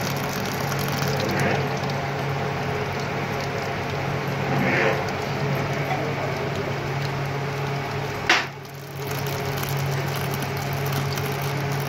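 Electrical discharge machine cutting under dielectric oil: a steady sizzling hiss of the sparking and the splashing flushing oil over a constant low machine hum. About eight seconds in there is one sharp crack, after which the noise briefly drops.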